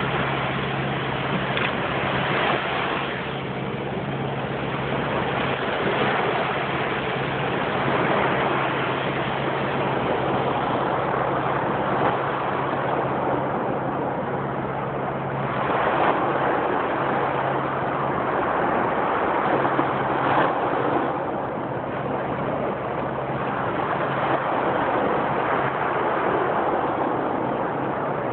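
Small sea waves breaking and washing up a sandy shore, swelling and easing every few seconds, with a steady low hum underneath that briefly drops out about two-thirds of the way through.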